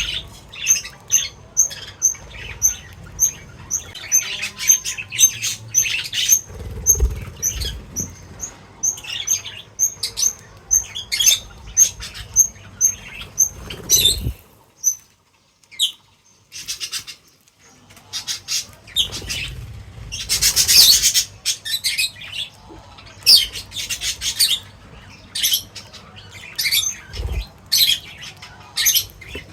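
Small birds feeding: a regular series of short high chirps, about two a second, through the first half, with wing flutters and rustling throughout. After a lull about halfway, more fluttering, rustling and scattered chirps.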